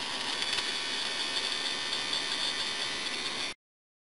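Small electric gearmotor of a supercapacitor-powered kit car running with a steady high whine and hum, cutting off suddenly near the end.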